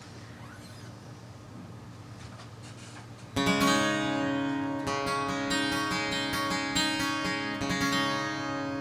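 Quiet room tone, then about three seconds in an acoustic guitar starts strumming sustained chords: the intro of a pop-rock song before the vocals come in.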